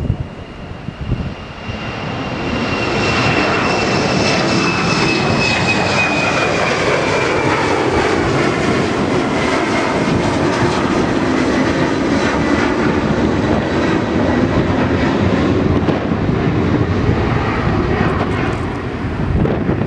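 Embraer E190 jet's two General Electric CF34-10E turbofans at takeoff thrust as it climbs out. The engine noise builds over the first couple of seconds and then holds loud and steady, with a high whine that slowly falls in pitch as the jet passes and draws away.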